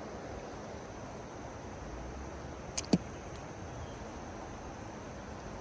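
Steady rush of flowing river water, with two quick sharp clicks close together about three seconds in, the second one louder.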